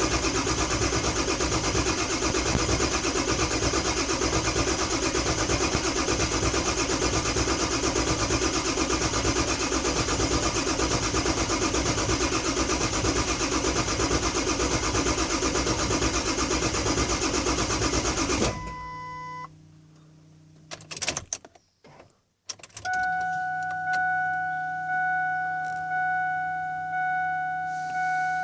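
A 7.3 Power Stroke V8 diesel in a Ford Super Duty cranking over on the starter for about eighteen seconds without firing, the sign of a crank-no-start condition. The cranking then cuts off, a short beep follows, and from about two-thirds of the way in a steady electronic chime pulses about once a second.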